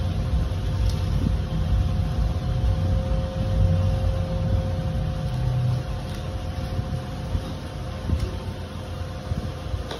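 Steady low mechanical rumble with a constant hum, easing somewhat about six seconds in, and a few faint ticks.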